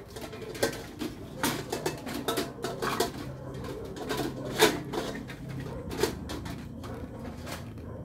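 Clear plastic sheeting crinkling while a stainless-steel baking rack knocks and clinks as it is handled: an irregular string of sharp clicks and knocks, the loudest about four and a half seconds in.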